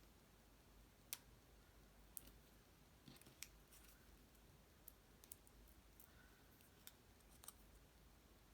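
Near silence broken by faint, scattered small clicks and snips of hand paper-crafting work: paper card pieces and foam tape being handled and cut, about a dozen irregular clicks.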